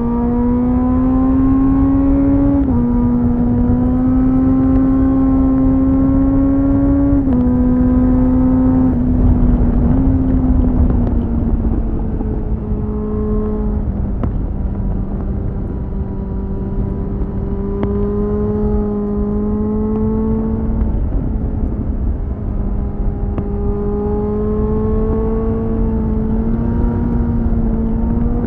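2001 Suzuki GSF600 Bandit's inline-four engine through a BOS slip-on exhaust, pulling up through the gears with its pitch rising and dropping at quick upshifts about 3 and 7 seconds in. It then eases off and runs at lower, steadier revs with gentle rises and dips. Heavy wind rumble on the microphone.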